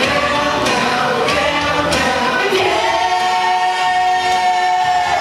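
Music with singing by several voices, ending on one long held sung note through the second half.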